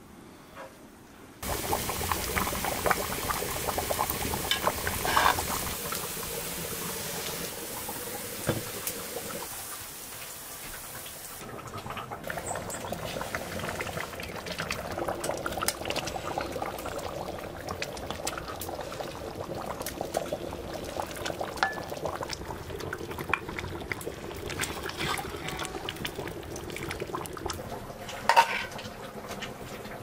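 Lamb stew boiling and bubbling in a pot over a wood fire, starting abruptly a second or so in with a steady hiss for the first several seconds. Near the end a metal spoon clinks against the pan as the stew is served.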